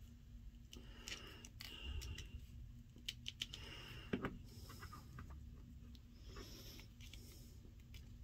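Faint clicks and handling noise from a plastic Batwoman Beyond action figure as its joints are turned and posed by hand. The clicks are scattered through the first half, with the sharpest one about four seconds in.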